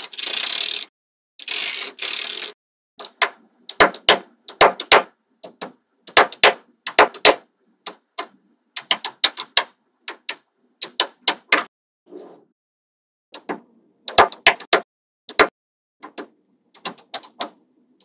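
Small magnetic balls snapping together with sharp clicks, coming in quick clusters of two to five clicks every second or so. In the first two seconds and a half, two short hissing rattles.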